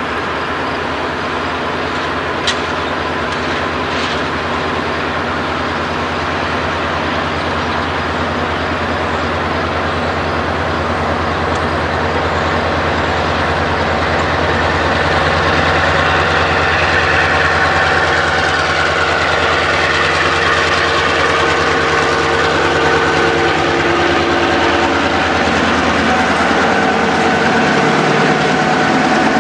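Diesel locomotive engine running at low throttle, growing louder in the second half as the locomotive draws close, with a steady pitched whine joining in. A single sharp click about two seconds in.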